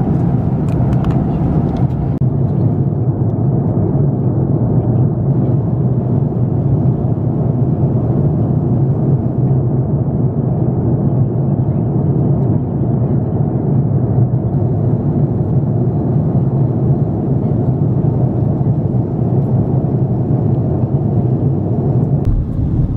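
Steady cabin noise of an Airbus A330-300 airliner in cruise: a low, even drone of engines and airflow around the fuselage. A few light clicks in the first second or so as the foil-covered meal tray is handled.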